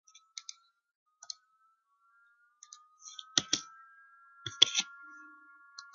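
Computer mouse and keyboard clicks: a few scattered single clicks, then louder double clicks about three and about four and a half seconds in.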